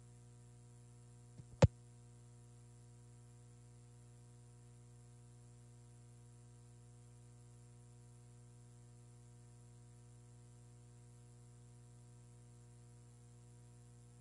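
Faint steady electrical hum, with a single sharp click about one and a half seconds in.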